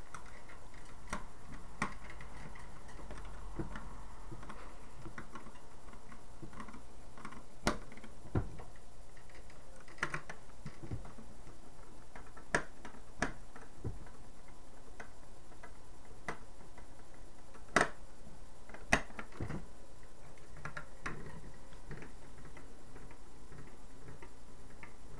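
Irregular small clicks and taps of metal pistol parts being handled and fitted together during reassembly of a BB pistol converted to a single-shot .22, a few sharper ones in the middle, over a steady background hiss.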